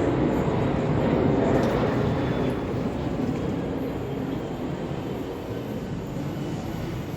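Samsung electric dryer running with freshly replaced drum support rollers and shafts, a steady rumble of the turning drum with no thumping: the flat-spotted rollers that caused the thumping have been replaced. The rumble eases off slightly from about two seconds in.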